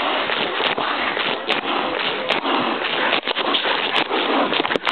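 Continuous close rustling and scuffling as golden retrievers move about right against the microphone, with scattered sharp clicks.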